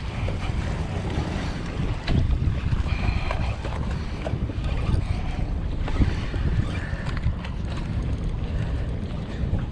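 Wind buffeting the microphone in a steady rough rumble, with surf washing against the rocks underneath.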